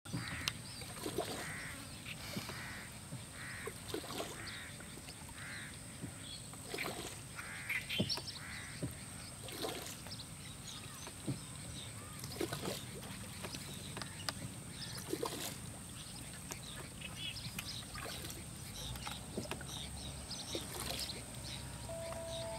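Wooden shikara paddle strokes in calm lake water, a dip and splash every second or two, with birds calling around the boat. In the first few seconds one bird gives a run of repeated calls about a second apart.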